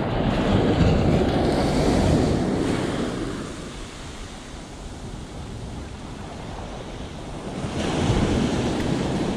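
Small waves washing onto a sandy beach, with wind buffeting the microphone. The rush is louder for the first few seconds, dies down, and swells again near the end.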